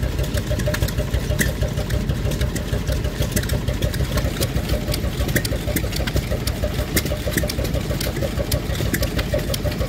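A 12/14 hp Petter S type two-stroke hot bulb semi-diesel engine running steadily with a rapid, even beat, belt-driving a dynamo. Sharp ticks are scattered over the running.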